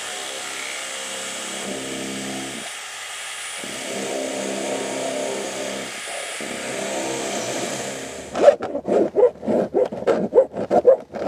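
Cordless drill with a spade bit boring through vinyl siding and the wall behind, its motor running under load with a short let-up about three seconds in. About eight seconds in the drilling gives way to quick, rasping back-and-forth strokes, about five a second, as the hole is reamed out by hand to a larger size.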